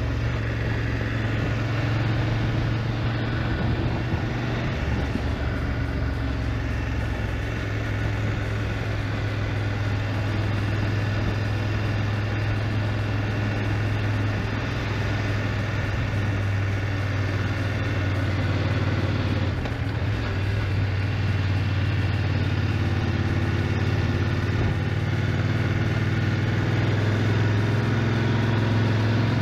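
BMW GS motorcycle engine running steadily on the move: a steady low hum under an even rushing noise, with no let-up.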